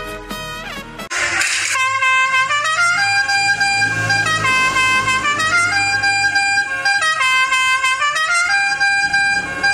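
Electric five-trumpet telolet horn playing a tune: several horn notes sound together, holding and stepping up and down in pitch. It is quieter for the first second, then comes a short hiss, and then the horn plays loud.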